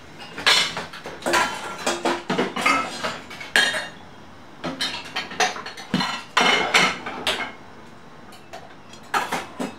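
Dishes being washed and handled in a stainless steel kitchen sink: ceramic and steel bowls clattering and clinking against each other and the sink in irregular bursts, with two short pauses.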